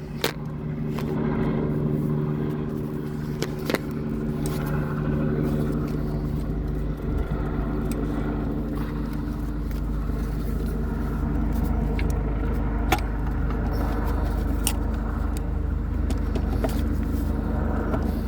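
Scattered sharp metallic clicks and knocks of parts and tools being handled as the old throttle body is worked loose from the engine, over a steady low machine hum.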